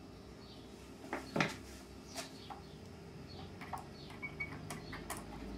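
Scattered small clicks and knocks of wooden parts and a screw being handled while a screw is driven by hand with a screwdriver into the wooden vending-machine mechanism. The loudest knock comes a little over a second in.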